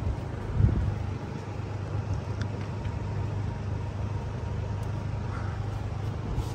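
A steady low mechanical hum, engine-like, with a brief louder bump about half a second in.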